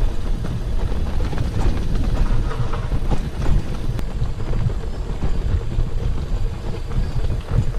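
Wind buffeting a bike-mounted camera microphone, with tandem bicycle tyres rumbling over a dirt and gravel trail. A dense, steady low rumble with scattered small clicks and rattles.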